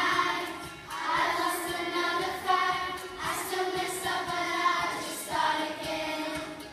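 A group of primary-school children singing together in unison, in short phrases.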